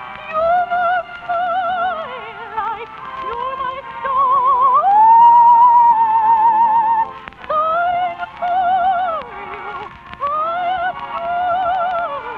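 Operatic soprano singing a phrased melody with wide vibrato over orchestral accompaniment, in narrow, early-1950s radio-broadcast sound. About four and a half seconds in she swoops up to a long held high note, the loudest moment, then resumes shorter phrases.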